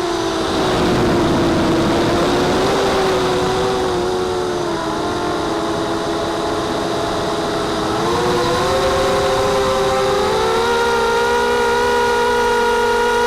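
Brushless motors and 5-inch props of an FPV250 mini racing quadcopter whining, heard close up from its onboard camera. The pitch drops as the throttle eases at the start, stays low with a rush of air, then climbs again about two-thirds of the way through and holds steady.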